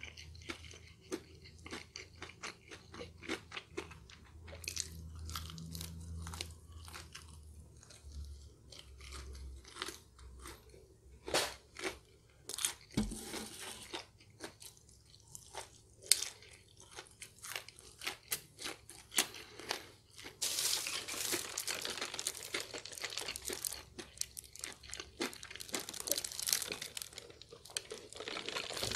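Close-up chewing and crunching of crispy fried chicken wings, irregular sharp crunches with mouth sounds, and a denser stretch of crackling about two-thirds of the way through.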